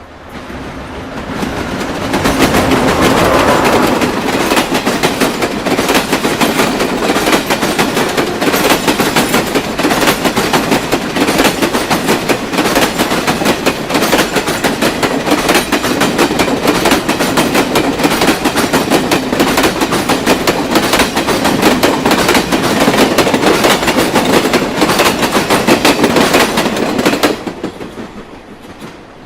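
Train passing at moderate speed: the sound builds over the first couple of seconds into a loud, steady, dense clatter of wheels over the rail joints, then falls away sharply near the end as the last wagons go by.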